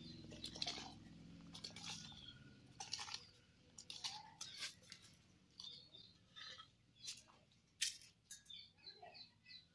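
Faint clinks and scrapes of an aluminium pot being set and adjusted on a clay wood-fire stove, with birds chirping in the second half. A low hum fades out in the first two seconds.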